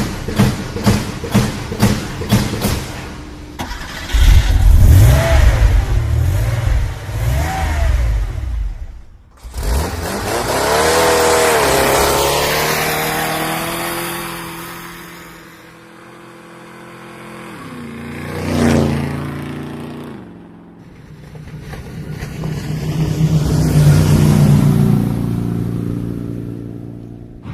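A run of engine sounds cut one after another: rapid rhythmic strokes at first, then a loud low engine, then motor vehicles that swell up and fade away twice, their engine pitch sliding as they pass.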